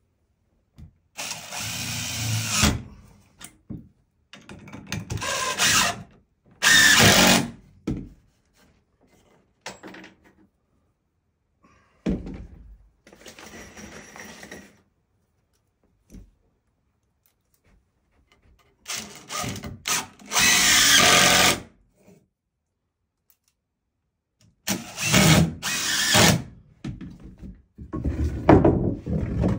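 Cordless DeWalt drill-driver driving screws into wood in a series of short runs, about seven, each one to three seconds long, with pauses between them.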